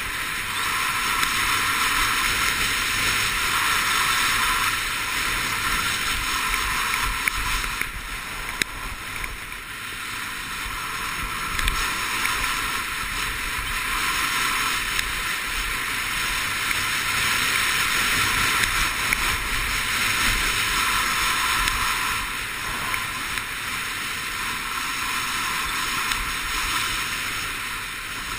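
Skis sliding and scraping over packed snow with wind rushing past, a steady hiss that rises and falls in waves, with a few small clicks.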